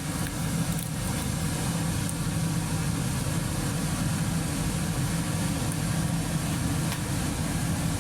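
A steady low mechanical hum, like a motor or engine running at an even speed.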